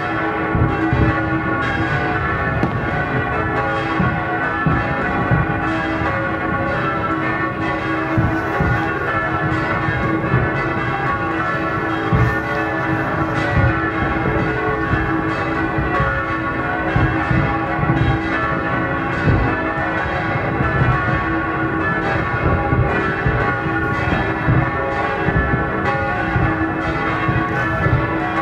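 Church bells ringing continuously, many overlapping bell tones at once, with irregular low booms of fireworks underneath.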